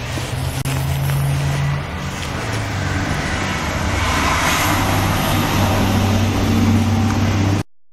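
A steady low mechanical hum with a hiss that builds through the middle; it cuts out completely near the end.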